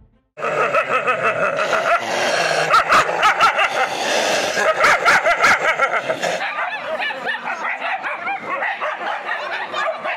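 Several dogs snarling, barking and yelping at each other in a fight, starting about half a second in and keeping up an unbroken, loud din of rapid, wavering cries.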